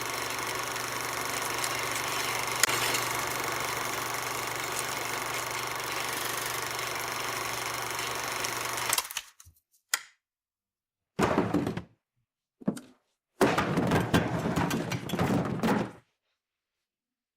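Film projector running with a steady mechanical whir and hum, cut off abruptly about nine seconds in. It is followed by a sharp click and then three short bursts of knocking and rattling, the last lasting about two and a half seconds.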